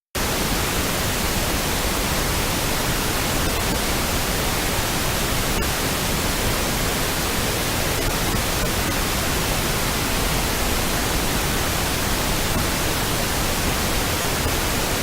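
Pink noise test signal from an audio setup disc, a steady even hiss across the whole range, played for speaker balance adjustment; it starts and cuts off abruptly.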